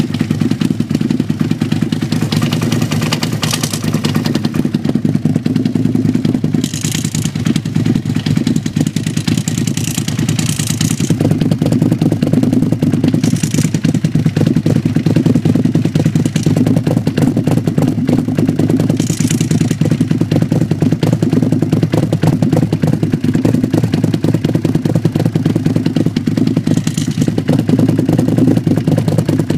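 Motorcycle engine idling steadily through an aftermarket slip-on silencer with a carbon-fibre end cap, heard right at the exhaust outlet. A few brief, higher rattles come through now and then.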